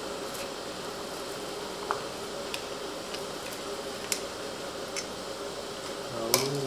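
A few soft clicks of a metal ladle and chopsticks against a stainless hot pot and bowls, over a steady low hiss and hum.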